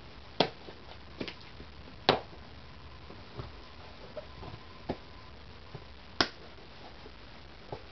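Sharp clicks and taps of a cardboard box being handled and opened, three louder clicks among fainter taps.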